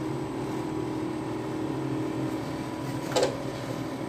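Outdoor condenser unit of an LG inverter split-type air conditioner running: a steady hum from its compressor and fan, with one brief sharper sound about three seconds in. The compressor is working but the unit is low on refrigerant from a leak.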